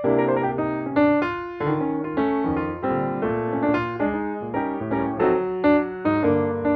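Background piano music: a run of struck notes and chords, each dying away as the next begins.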